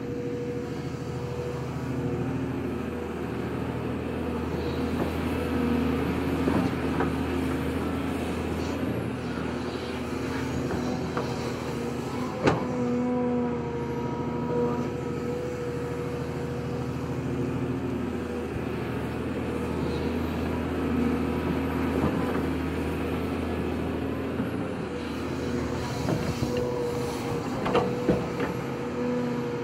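Volvo EC240B hydraulic excavator at work digging soil: its diesel engine runs steadily with a high whine over the hum. A few sharp knocks cut through, the loudest a little before halfway.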